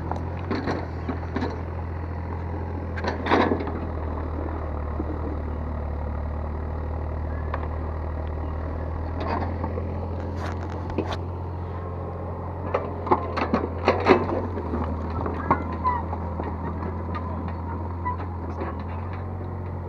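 Excavator's diesel engine running steadily while its bucket scrapes and knocks against soil and rubble, with a loud knock about three seconds in and a cluster of knocks around thirteen to fourteen seconds in.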